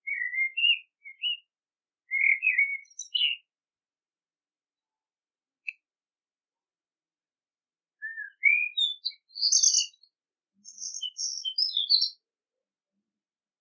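Male Eurasian blackbird singing: short, fluty, warbled phrases separated by pauses, the later phrases ending in higher, squeaky twitters. A gap of about four seconds falls in the middle.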